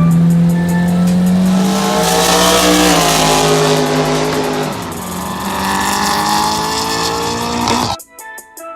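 Honda Del Sol engine revving hard under acceleration in a pull, its pitch climbing. Near the middle it drops, as at a gear change, and climbs again before cutting off suddenly near the end.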